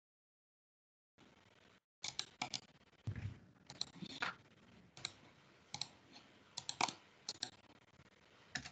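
Irregular clicks of typing on a computer keyboard, starting about two seconds in, picked up by a video-call microphone.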